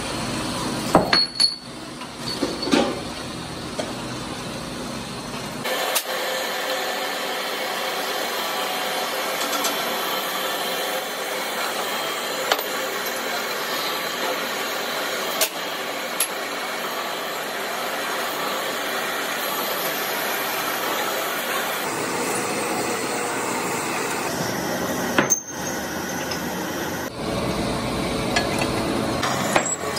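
Pillar drill press running and cutting into steel bar stock for truck kingpins, a steady machine noise, with a few sharp metal clanks of steel bars being handled in the first few seconds.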